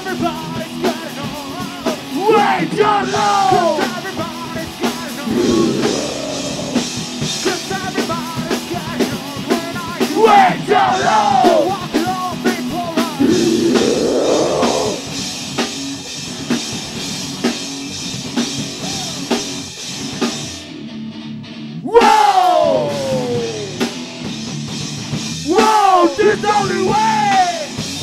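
Rock band playing live in a rehearsal room: drum kit, electric guitars and bass with sung and shouted vocals. Near the three-quarter mark the high end drops out for about a second, then the full band comes back in loudly.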